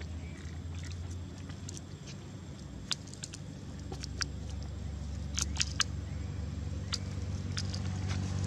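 Steady low drone of a distant engine running, with scattered faint sharp clicks and ticks.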